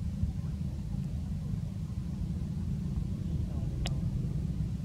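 Steady low rumble with faint voices in the background, and one sharp click about four seconds in.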